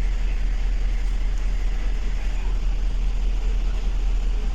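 2007 GMC Yukon XL's V8 engine idling with a steady low rumble, misfiring on cylinders 1, 3, 5 and 7.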